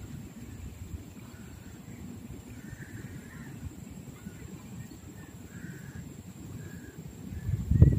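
A few short, faint crow caws over a steady low rumble. The rumble swells much louder near the end.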